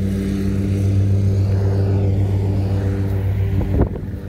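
A motor runs with a steady, even drone throughout. Near the end a short rising sound cuts in over it, and the drone is quieter after that.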